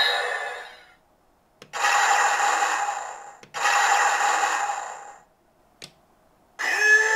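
DX Zenryoku Zenkai Cannon toy playing electronic sound effects through its small speaker: a click, then two alike noisy bursts of about a second and a half each with a steady tone through them, another click, and a new sound effect starting near the end. The first second holds the fading end of the toy's announcement.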